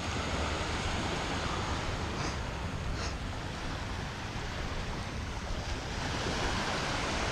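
Small surf breaking and washing up the shore in a steady hiss, with wind rumbling on the microphone.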